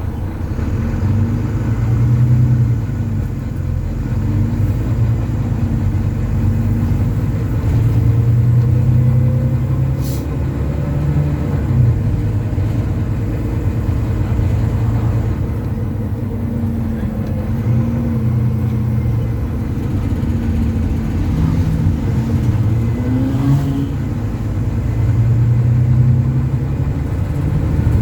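Volvo B9TL bus's six-cylinder diesel engine, heard from inside the bus, pulling hard. Its note rises and falls several times as it revs up through the gears and drops back.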